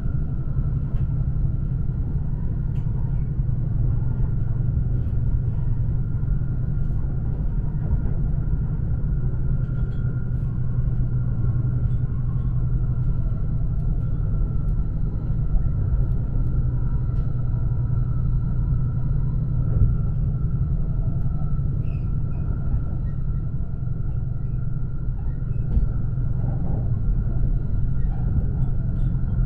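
Steady low rumble of an E5-series Hayabusa Shinkansen running, heard inside the passenger cabin, with a faint steady high whine over it.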